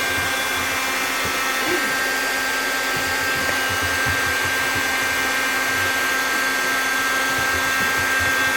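Hair dryer running steadily: a constant rush of air with a steady high whine.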